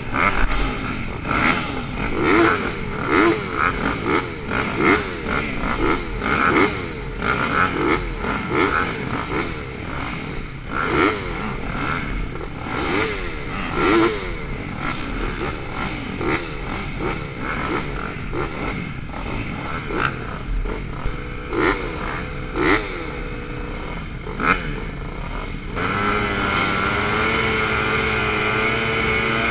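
A row of motocross bikes at the starting gate, their engines blipped over and over in quick rising-and-falling revs. About three and a half seconds before the end, the engines settle into a steady, held high rev, the throttle held ready for the gate drop.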